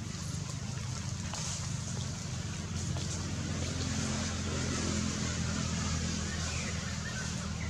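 A steady low drone, like a motor running at a distance, with an even hiss over it.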